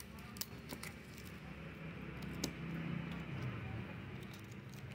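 Fingers handling a cellophane-wrapped cardboard phone box, the plastic wrap giving scattered sharp clicks and crinkles. A low hum swells and fades in the middle.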